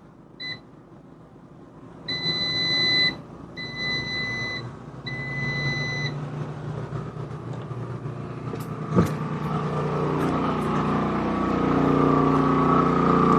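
Air fryer control panel beeping: one short beep, then three longer beeps of about a second each as it is switched on. Then the Champion 4500 inverter generator's engine hum builds steadily louder as it speeds up to carry the added load, about 80% of capacity, with a single click near the middle.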